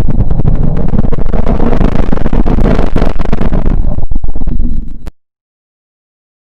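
A 'planet sound from space' recording, a sonification of spacecraft data: a loud, dense rumbling roar full of crackles, which dips near the end and cuts off into dead silence about five seconds in.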